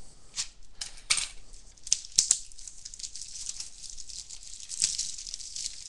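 Cardboard blaster box of trading cards being torn open by hand: tearing and crinkling with scattered sharp clicks, the loudest a little past two seconds in.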